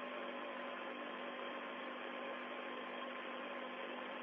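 Steady hiss with a low hum on the open radio link from the Soyuz capsule's cabin.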